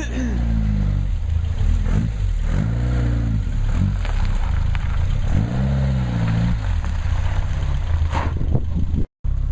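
Homebuilt Locost kit car's engine running, freshly started after standing unused all summer, blipped up and back down twice, about two and a half and five and a half seconds in.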